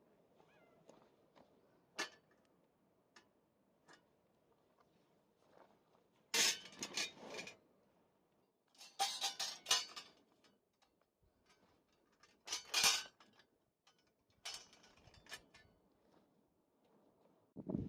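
Cookware and utensils clinking and scraping in four short bouts of clatter, with single clicks between them.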